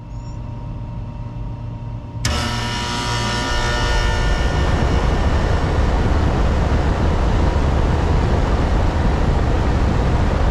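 1986 Carrier Round One central air conditioner condensing unit starting up. A steady low hum, then about two seconds in it kicks on abruptly and settles into a loud, steady run of its fan and reciprocating compressor.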